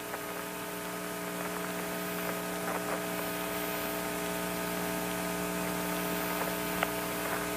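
Steady hum and hiss of an open Apollo air-to-ground radio channel between transmissions, with a few faint clicks.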